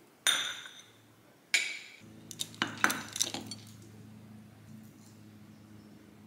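A glass coffee mug clinking sharply twice against a ceramic saucer, each strike ringing briefly, then a quick run of lighter clicks and knocks as the mug is set down on its saucer on a table.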